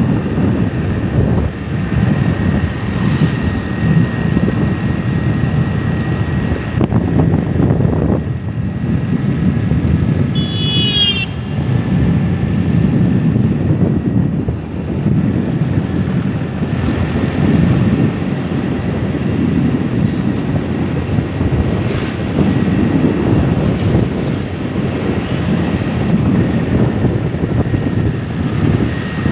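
A motorcycle riding steadily along a road, its engine and tyre noise under heavy wind rush on the microphone, with a thin steady whine. About ten seconds in a short high sound falls in pitch.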